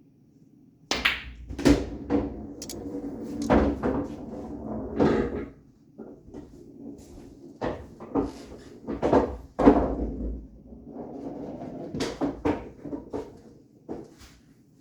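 Pool balls on an 8-foot bar-box table: a sharp crack about a second in, then a quick run of clicks and knocks as the balls collide and strike the cushions, over a low rumble of balls rolling. Further clicks and rolling rumbles follow in clusters a few seconds apart.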